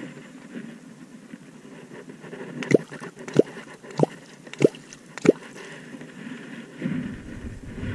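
Catfish clonk (vábnička) struck into the river surface five times in a steady rhythm, about two-thirds of a second apart, each stroke a sharp watery plop. The clonking is a call to draw catfish up to the bait.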